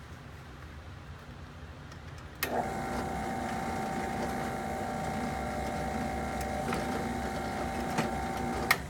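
Skil benchtop drill press switched on about two and a half seconds in, its motor running with a steady whine while a pilot hole is drilled through a metal panel, then cut off abruptly with a click near the end.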